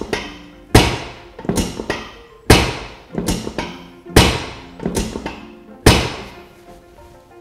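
Background music with sustained notes, and a regular run of loud, sharp thuds about once a second, the stronger ones alternating with weaker ones, that stop about six seconds in.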